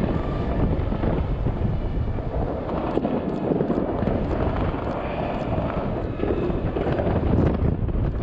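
Wind buffeting the microphone over a steady low rumble, with scattered sharp pops and cracks from distant fireworks going off across the city.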